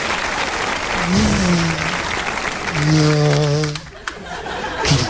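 Studio audience laughing and applauding while a man makes vocal sound effects into a microphone. About a second in there is a short tone that rises and falls, and near the middle a steady hummed tone lasts about a second and then stops suddenly.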